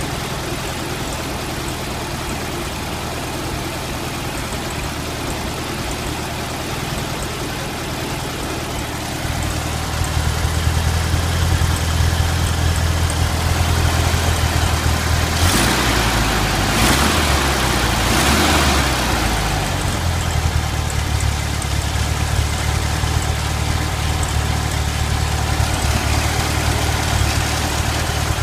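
1971 VW Super Beetle's air-cooled single-port 1600 flat-four idling with a slight misfire, which the owner suspects is a spark fault that began after the distributor's condenser came loose. The hum gets louder about a third of the way in, and there is a few-second louder, rougher stretch around the middle.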